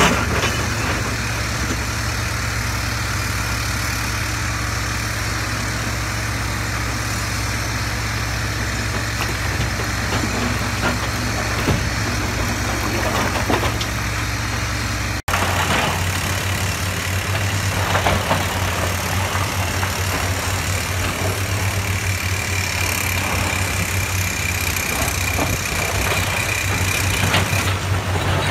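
Komatsu PC350 hydraulic excavator's diesel engine running steadily under working load while it loads rock into a dump truck, with a few short knocks of rock. About halfway through, the sound cuts out for an instant and resumes with a different engine note: a Komatsu PC450 excavator working as it digs broken rock.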